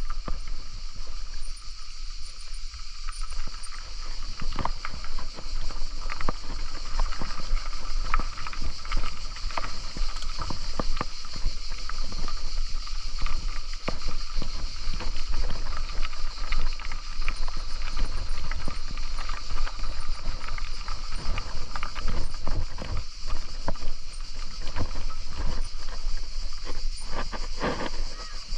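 Wind rumbling on the microphone of a moving bicycle, with irregular clicks and rattles from the bike over the road surface and a steady high hiss.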